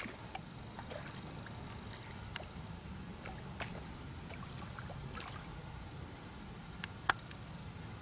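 Steady low rush of river water, with scattered light clicks and one sharp click about seven seconds in.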